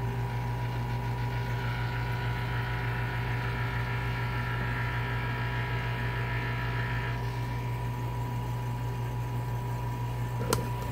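Vacuum pump running steadily with a low hum, used to vacuum-test the freshly reamed TCC valve bore of a 4L60E valve body. A higher hiss joins about two seconds in and stops about seven seconds in.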